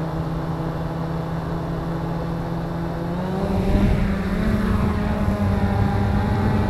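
Cheerson CX-20 quadcopter's motors and propellers running with a steady hum at low spin. A little over three seconds in they rise in pitch and get louder as the drone throttles up and lifts off.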